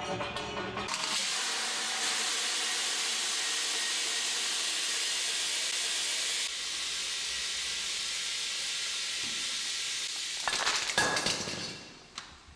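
A Rube Goldberg kinetic sculpture making a steady hiss for several seconds, then a brief clatter of knocks that dies away.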